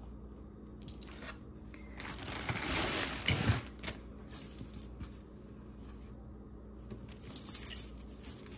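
Small metal jewelry pieces clinking and jingling as they are handled and sorted through a pile, with a louder jangling, shuffling stretch about two to four seconds in and another burst of clinks near the end.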